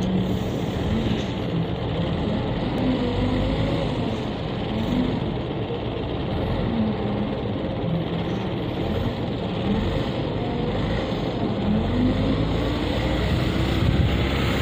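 Caterpillar 950E wheel loader's diesel engine running under load, its pitch rising and falling every few seconds as it revs to lift and dump the bucket.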